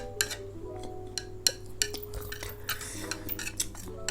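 Eating utensils clicking and scraping against a bowl of noodles, with frequent short clicks and a brief stretch of noisier eating sound midway, over soft instrumental background music.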